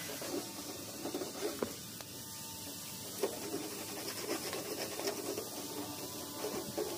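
Irregular scraping and rubbing with light knocks, and two short sharp clicks, about a second and a half and about three seconds in.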